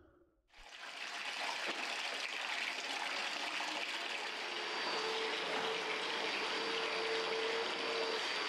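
Water pouring in streams into the steel bowl of a spiral dough mixer, a steady splashing run that starts about half a second in. A faint steady machine hum joins it in the second half.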